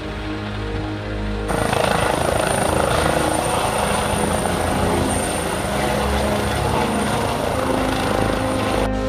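Air ambulance helicopter lifting off, its rotor and turbine noise with a steady high whine cutting in abruptly about a second and a half in and cutting out just before the end, where music returns.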